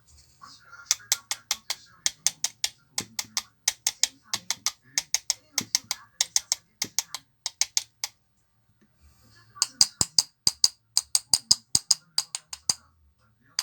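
Rapid ratchet-like clicking from the Hummer PLI12 cordless screwdriver's gear and clutch mechanism being turned by hand, about four or five clicks a second, with a short pause before it resumes.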